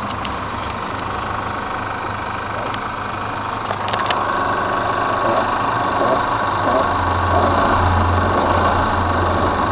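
Chevrolet S10 2.8 four-cylinder turbo-diesel engine running at about idle. There is a short click about four seconds in, after which it runs a little louder with a steady tone over it. This is the strange noise that the owner hears on light accelerator taps and sometimes at idle; a GM mechanic put it down to a valve that opens when accelerating.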